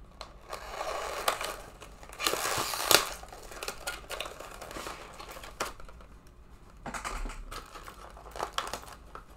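Plastic packaging crinkling and rustling in bursts, with scattered clicks; the loudest is a sharp snap about three seconds in.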